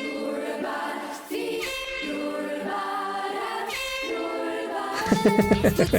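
Girls' choir singing a cappella in slow, held chords. About five seconds in, a louder, rapidly pulsing sound cuts in.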